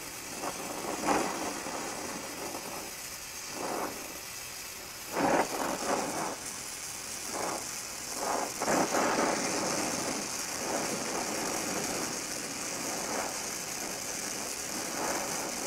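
Gas welding torch with a small tip burning steadily, a continuous hiss as its flame heats an iron bar, with a few brief louder rushes at irregular moments.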